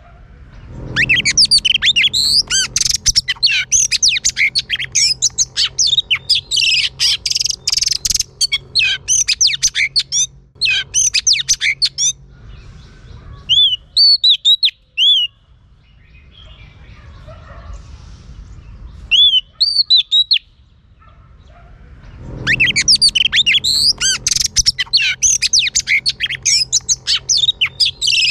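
Female oriental magpie-robin singing: fast runs of varied whistles and chirps that break off about halfway into a few single rising-and-falling whistles, then resume in full near the end.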